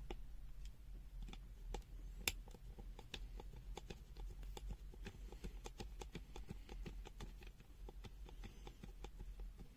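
Many small clicks and taps of plastic and small parts being handled on an opened digital multimeter, with one sharper click about two seconds in, over a low steady hum.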